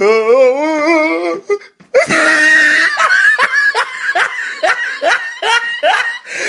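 Laughter sound effect: a wavering, rising laugh in the first second or so, then after a short gap a loud burst of hearty laughter pulsing a couple of times a second, stopping just before the end.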